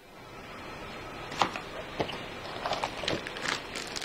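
Handling noises of small plastic accessories and their packaging: a few sharp clicks, then crinkling of a plastic bag building toward the end.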